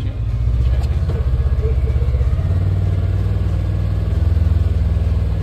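Engine of a Polaris utility vehicle running with a steady low drone, the pitch shifting slightly about halfway through.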